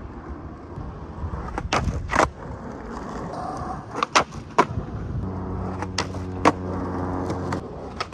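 Skateboard wheels rolling over rough asphalt, with several sharp clacks of the tail popping and the board landing. A steady low hum sounds for a couple of seconds past the middle.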